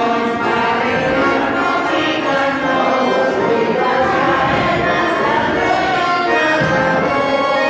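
Garmon (Russian button accordion) playing a folk song while a group of people sing along.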